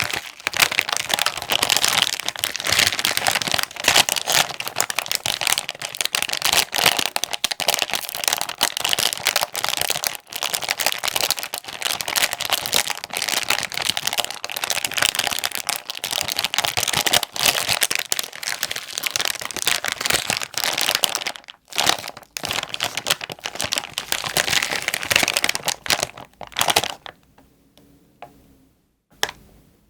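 Plastic wrapper of a Jin Ramen Mild instant-noodle packet being crinkled and crumpled by hand in dense, continuous crackles. The crinkling stops near the end, leaving only a few faint rustles.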